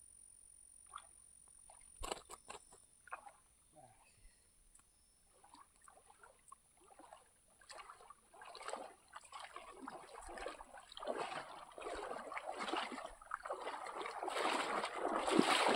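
Water splashing and dripping as a cast net is hauled out of a lake. It starts with scattered drips and small splashes and builds into steady, louder splashing near the end as the net full of tilapia reaches the surface.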